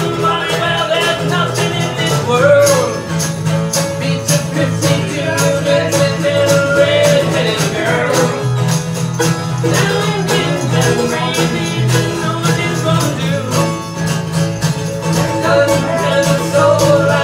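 Live acoustic guitar and mandolin playing a bluegrass-style tune together, the guitar strummed in a steady rhythm under the mandolin's melody.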